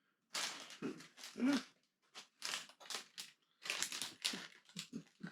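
Loose plastic Lego pieces and bags rustling and clattering in a run of irregular bursts as spare bricks are rummaged through by hand, in a search for a missing piece.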